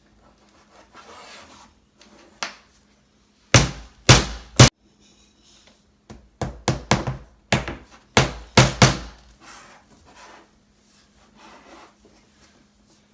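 A small hammer drives short nails into the kit's soft wooden pieces. Three sharp strikes come about three and a half seconds in, then an uneven run of about ten more a couple of seconds later.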